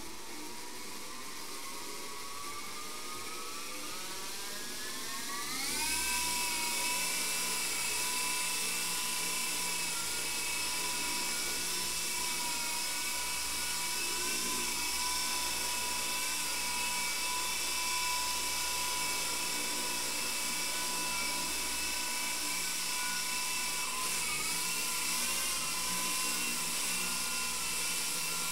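FX017C micro RC helicopter's electric rotor motors spooling up, a whine rising steadily in pitch over about five seconds, then holding a steady high whine as it lifts off and flies. The pitch wavers briefly near the end as it manoeuvres.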